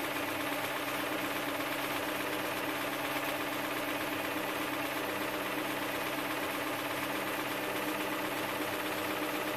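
Replacement Toyota V8 engine idling steadily with a rhythmic knock, which the owner takes for rod knock in a bad engine.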